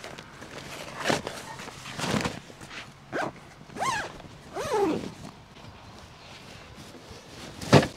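Clear plastic sheeting rustling and crinkling as it is packed into a fabric duffel bag, with a few soft knocks. Two short falling squeals come around the middle. A sharp thump near the end as the bag is set down.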